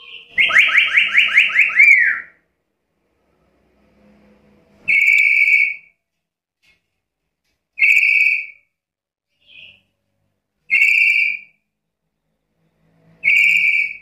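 Black-capped lory (Lorius lory) calling: a quick run of about nine whistled notes in the first two seconds, then four loud single calls, each under a second, about every three seconds.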